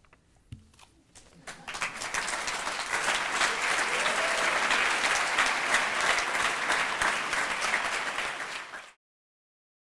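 Audience applauding, starting about a second and a half in and cut off suddenly near the end.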